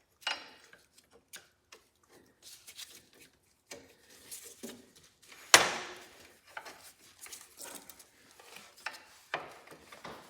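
Small metal parts and tools clinking and knocking irregularly, with one sharp metallic clank about halfway through.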